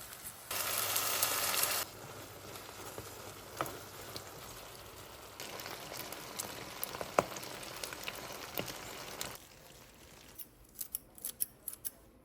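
Kitchen food-preparation sounds: a loud hiss for about a second and a half, then a softer steady hiss with scattered clicks and taps, and a quick run of clicks near the end.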